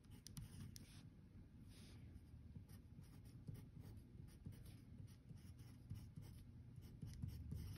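Pen writing on a sheet of paper: faint, irregular scratching strokes and light taps as short numbers and letters are written out.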